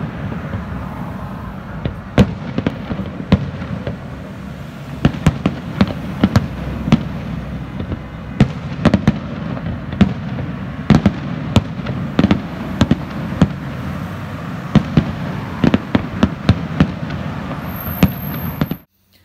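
Aerial firework shells bursting: sharp bangs at irregular intervals, often one or two a second and sometimes in quick clusters, over a steady rumble of continuous reports.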